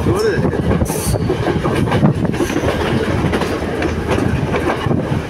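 Passenger train running at speed, heard from its open doorway: a steady rumble and rattle of the carriage with the wheels clacking over the rail joints. A brief sharp high-pitched sound cuts in about a second in.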